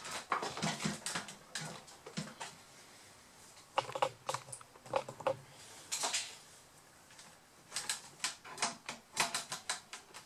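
Irregular sharp clicks and taps of a Samsung R710 laptop's plastic case as it is pried and worked apart by hand.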